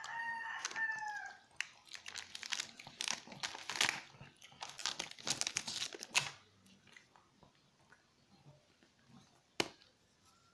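A Shih Tzu crunching a cracker: a quick run of crisp crunches lasting about four seconds, then one sharp click near the end. A brief high whine is heard at the very start.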